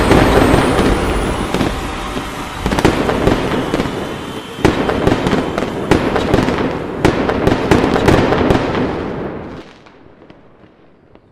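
Fireworks going off: steady crackling with several louder sharp bangs, dying away over the last two seconds.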